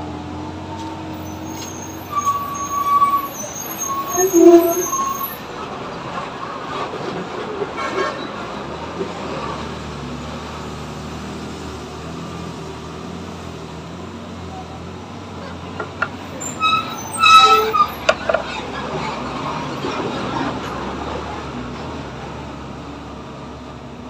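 Street traffic with vehicle horns: several short honks about two to five seconds in, and a louder honk around sixteen to eighteen seconds in, over a steady traffic hum.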